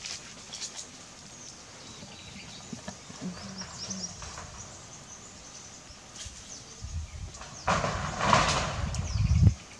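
Thin plastic bag rustling and crinkling as a macaque rummages in it for cucumbers, in a loud stretch from about three-quarters of the way in, with quieter outdoor background and a few small clicks before it.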